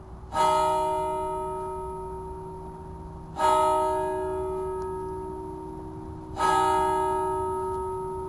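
A swinging bronze church bell struck by its clapper three times, about three seconds apart, each stroke ringing on and slowly dying away.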